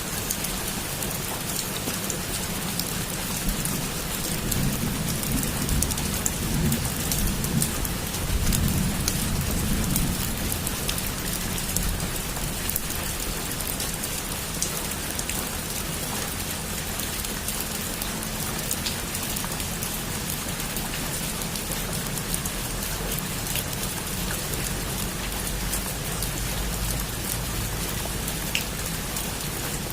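Heavy rain falling steadily, with scattered sharp drop taps. A low rumble of thunder swells through the first third.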